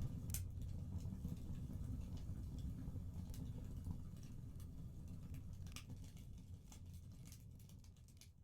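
Fireplace fire crackling, a low rumble with scattered sharp pops, slowly fading out near the end.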